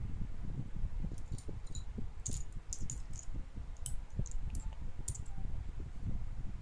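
Small plastic Lego pieces clicking and clattering against each other as they are handled, a quick string of light clicks from about one to five seconds in, over a steady low rumble.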